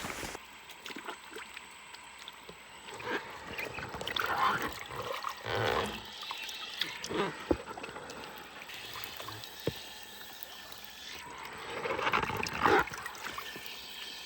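River water sloshing and trickling in irregular swells, with a few light knocks, as water is moved about by hand or a trap.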